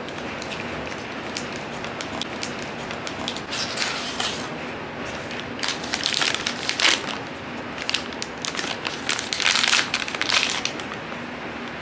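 Blind-box toy packaging handled close to the microphone: crinkling and crackling in three bursts, the loudest about halfway through and again shortly before the end, over a steady background hiss.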